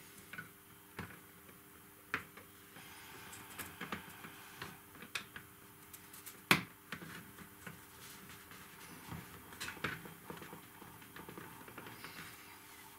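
Small model kit parts being handled and hooked together by hand: scattered light clicks and taps, with one sharper click about six and a half seconds in.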